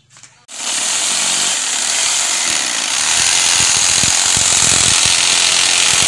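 Small electric jigsaw switching on about half a second in and cutting into a wooden board, running steadily with a fast, even reciprocating buzz. Its owner calls this jigsaw small and rather weak.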